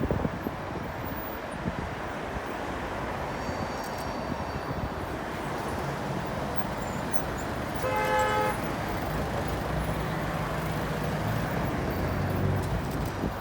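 A horn toots once, briefly, about eight seconds in, over a steady rumbling noise; a low engine drone sets in just after it.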